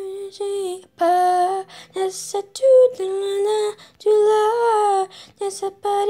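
A girl singing a song unaccompanied, in short phrases of held, gliding notes.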